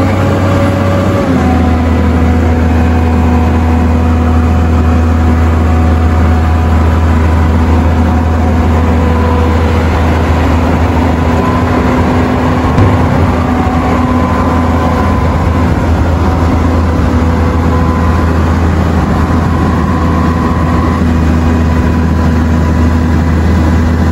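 Diesel engine of the Botchan Ressha locomotive, a diesel built to look like a steam engine, running steadily. Its note rises in the first second and then holds even, with one short knock about halfway through.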